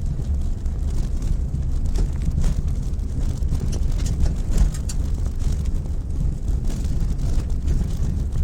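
Mitsubishi Pajero Mini driving over a rough unpaved track. A steady low rumble of engine and tyres runs throughout, with scattered ticks of gravel and stones.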